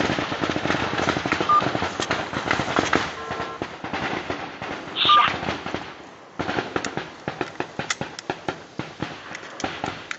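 Gunfire: many sharp shots cracking irregularly in rapid succession, densest in the first few seconds and sparser after a brief lull about six seconds in.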